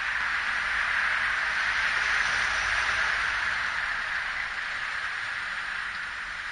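Street traffic: a steady hiss of cars passing on the road, swelling about two seconds in and easing near the end, over a faint low rumble from a dump truck idling across the street.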